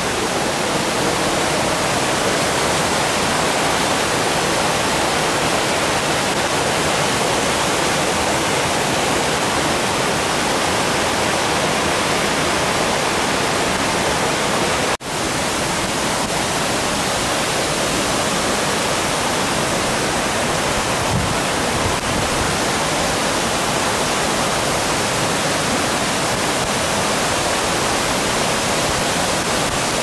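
Steady rushing of water from the cascades and small waterfalls of a rocky mountain stream. It drops out for a moment about halfway through, then resumes unchanged.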